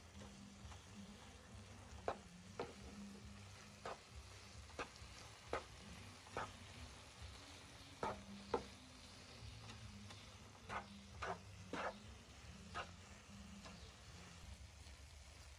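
Wooden spatula stirring a grated coconut and sugar mixture in a nonstick frying pan, knocking lightly against the pan at irregular intervals over a faint sizzle as the coconut toffee mixture cooks.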